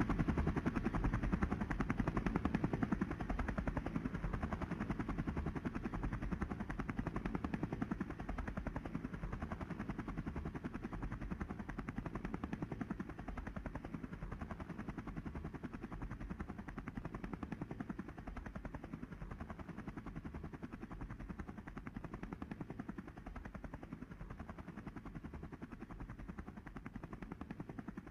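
Helicopter main rotor chopping in a fast, even beat, fading steadily as the helicopter flies away.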